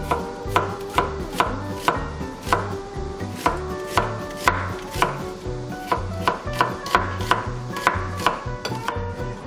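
A chef's knife slicing an onion thinly on a wooden cutting board: each stroke ends in a sharp knock on the board, at a steady pace of about two a second.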